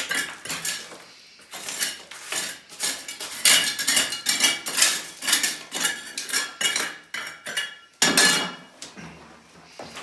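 Rapid, irregular knocks and clinks, some with a short ring, as broken slabs of concrete floor are worked loose and lifted out.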